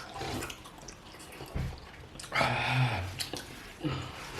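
Mouth sounds of eating spicy pepper soup: small wet smacks and clicks, with one louder breathy, slurping noise a little past two seconds in.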